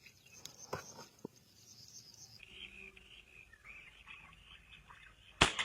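Faint chirping and chatter of small birds, with a couple of soft clicks about a second in, then a single sharp, loud crack near the end.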